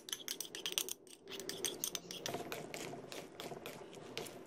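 Metal spoon scraping and clicking against a bowl as mayonnaise is scooped out, then cutlery knocking against a salad bowl while a creamy fruit salad is stirred. It comes as a quick run of small clicks and scrapes, thickest in the first second.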